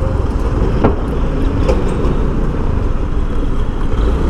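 Steady running noise of a moving road vehicle: engine and road rumble with a constant low drone, amid city street traffic.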